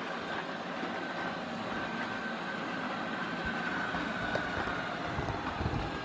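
Bagotte BG700 robotic vacuum cleaner running as it drives across the floor: a steady whirring hum with a faint high whine over it.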